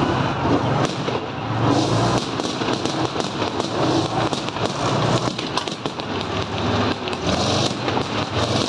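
T-34 tank's V-2 V12 diesel engine running as the tank drives past, with a dense, irregular clatter of its steel tracks.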